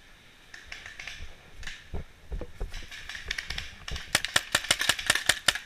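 Scattered clicks and thumps, then from about four seconds in a rapid string of sharp pops, about eight a second: a paintball marker firing.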